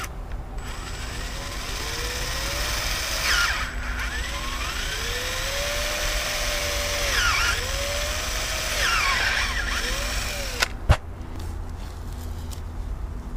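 Cordless drill enlarging a hole through the fibreglass of a boat's bow with a bigger bit, run in several short bursts. Its motor whine rises as the trigger is squeezed and falls as it is let off. A single sharp click comes near the end.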